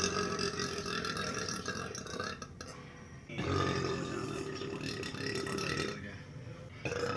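A woman burping in long, drawn-out belches: one ends about two and a half seconds in, a second of about three and a half seconds follows after a short pause, and a third starts near the end.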